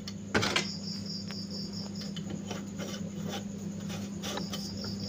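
Small metal clicks and light scraping as a sewing machine's hook is fitted back into place underneath the machine, with one sharper click about half a second in.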